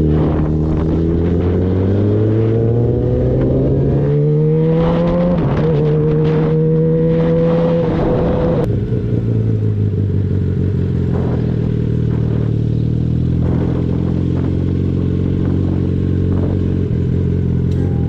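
Kawasaki ZX-10R's inline-four engine under acceleration, its pitch climbing through the first few seconds with a couple of small steps as it shifts up. It holds high, then drops about nine seconds in to a lower, steady cruising note.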